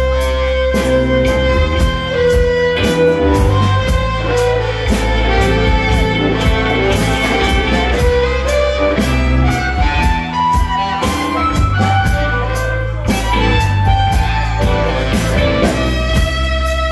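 Live rock band playing an instrumental passage: electric guitars and bass under a harmonica playing long held notes, with a steady beat and tambourine.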